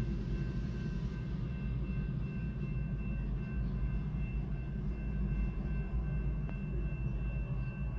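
GE diesel-electric locomotives (BNSF C44-9W units and a Kansas City Southern ES44AC) running light past a grade crossing, with a steady deep engine rumble. A few thin steady high tones ring over it.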